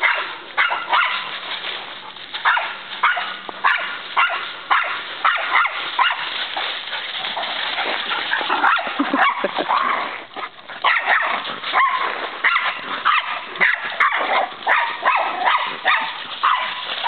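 Dogs play-fighting, giving many short, sharp barks and yips in quick succession, sometimes several a second.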